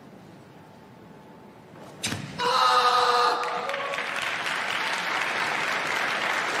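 A quiet arena hush, then about two seconds in a sharp thud and at once a karateka's loud kiai shout, held for about a second, closing the kata Unsu. Crowd applause follows and keeps going.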